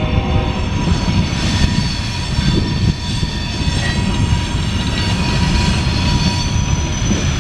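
Loaded coal hopper cars of a freight train rolling past: a steady heavy rumble of steel wheels on the rails, with a thin, steady wheel squeal for a couple of seconds as the train takes the turn.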